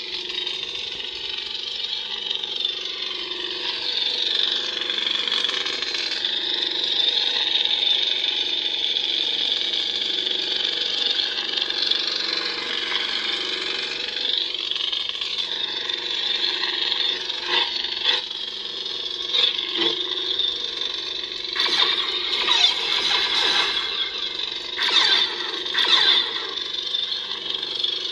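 Lit neopixel lightsaber humming steadily from its Proffie sound board through the hilt's speaker, the hum sliding up and down in pitch as the hilt is moved. In the second half, several short, sharp, noisy sounds cut in over the hum.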